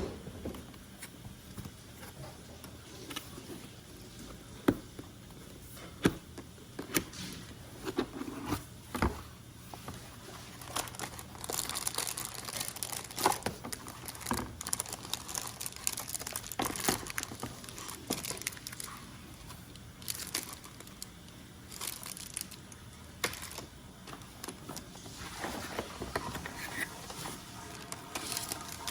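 Keyboard packaging being opened and handled: plastic and paper crinkling and rustling, with scattered sharp clicks and knocks of the box and its contents being moved.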